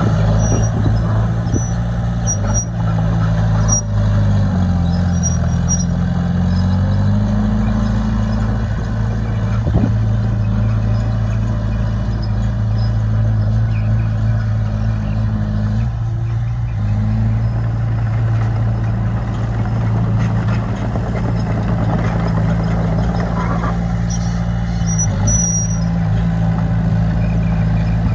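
Bulldozer's diesel engine running under steady throttle. Its speed sags about four seconds in and climbs back a few seconds later, then holds. Faint high squeaks come through now and then.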